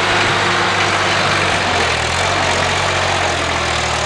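Heavy engine of the snowplowing vehicle running steadily, its note shifting about two seconds in, over a steady hiss.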